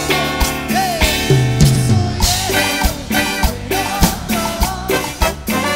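A rock band playing live: a drum kit keeping a steady beat under bass, guitar and a melody line.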